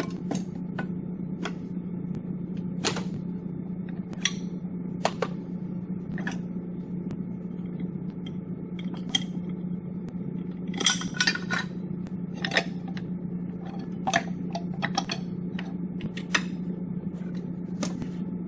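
Scattered metallic clinks and knocks as a motorcycle's rear axle is slid out and the rear wheel is worked free of the swingarm, with a quick cluster of clinks about eleven seconds in. A steady low hum runs underneath.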